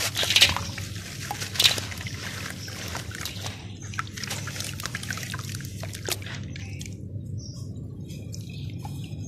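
Dry red dirt crumbled by hand, its grit and small chunks pouring and dropping into a basin of muddy water, with two loud splashes in the first two seconds. A hand then works and squeezes the soaked dirt under the water, making smaller splashes and wet clicks that die down to faint ticks near the end.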